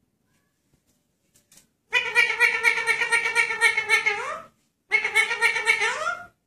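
Blue Indian ringneck parakeet giving two long, rapidly pulsing calls about two seconds in, each ending in a quick rise in pitch.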